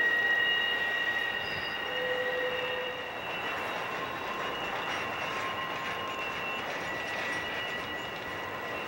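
Intermodal freight cars rolling around a tight curve, with a steady high-pitched wheel squeal in several held tones over the rumble of the cars; the squeal weakens for a few seconds midway and returns near the end.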